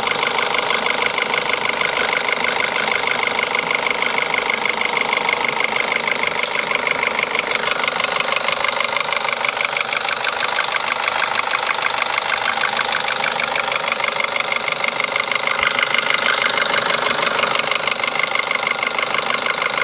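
Renault Laguna II's four-cylinder petrol engine idling steadily, heard from the open engine bay. A fast, even ticking and a steady high whine run over the idle.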